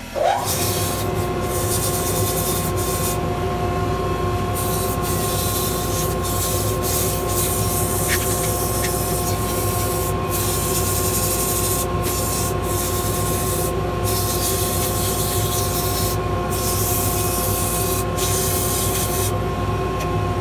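Mini wood lathe spinning up with a short rising whine, then running at a steady whine while sandpaper is held against the inside of a spinning spalted maple bangle. The sanding gives a rough hiss that starts and stops many times as the paper touches and lifts off.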